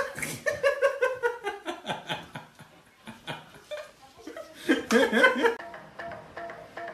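A person laughing in short, broken bursts that fall in pitch, with a second, louder burst of laughter about five seconds in. Soft music starts near the end.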